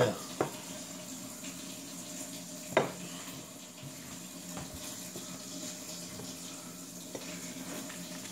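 Kitchen handling sounds: a few sharp knocks of a plate and rinsed kielbasa being set down on the counter, near the start and again a few seconds in, over a steady low hiss.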